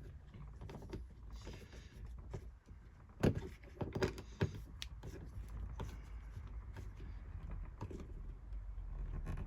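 A hand screwdriver slowly driving screws through a plastic window-latch reinforcer plate: faint rubbing and handling with a few light clicks and knocks, bunched between about three and five seconds in.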